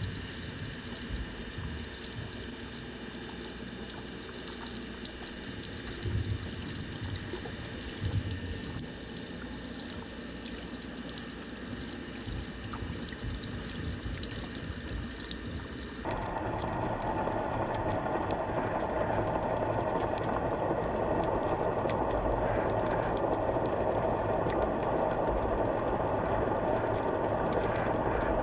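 Underwater sound picked up by a GoPro in its housing: a steady muffled water noise with many faint crackling clicks and two dull knocks, about six and eight seconds in. About sixteen seconds in it changes abruptly to a louder, duller rushing hiss.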